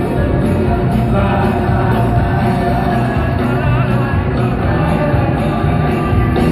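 A live band playing drums, keyboards and electric guitar, with a male lead singer.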